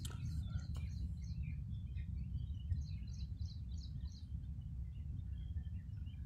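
Birds chirping, with a quick run of short high notes about three seconds in, over a steady low rumble.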